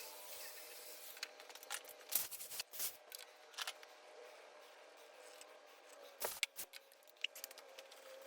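Scattered sharp clicks and light metallic taps of small motorcycle parts and hand tools being handled while a drum brake is reassembled, over a faint steady hum.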